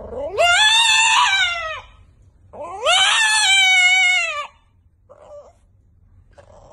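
French bulldog howling in two long, drawn-out calls, each rising in pitch and then falling away.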